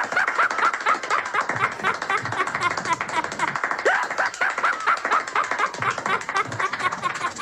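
An animal's rapid, continuous run of short chucking calls, several a second, with a few rising squeals among them.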